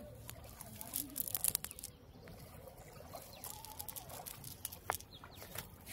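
Soft rustling and scattered small crackles as a fishing cast net is handled and pulled over dry leaves and grass.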